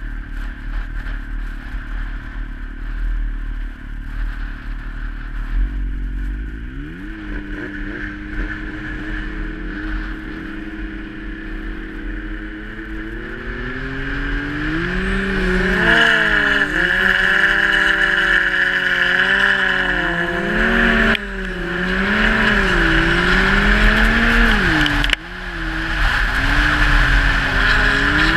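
Turbocharged Yamaha Nytro snowmobile engine running, at a steady pitch at first, then louder from about halfway, revving up and down under throttle, over a steady rush of wind and track noise. The sound drops out sharply twice near the end.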